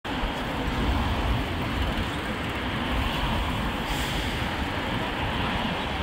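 City traffic noise: cars and other vehicles passing through a busy intersection, with a steady low rumble of engines and tyres.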